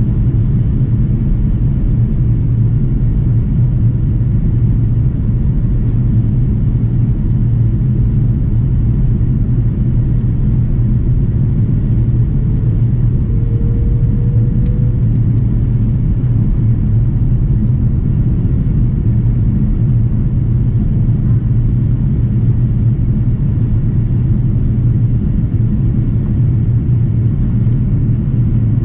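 Steady low rumble inside the cabin of an Airbus jet airliner in flight: engine and airflow noise.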